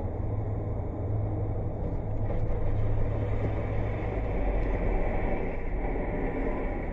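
Steady road and engine rumble of a car driving at speed on a highway, heard from inside the car's cabin.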